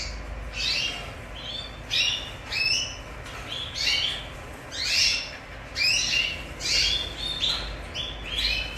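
A small animal chirping repeatedly in short, high-pitched calls, about a dozen of them at irregular intervals, each rising and then dropping in pitch, over a low background rumble.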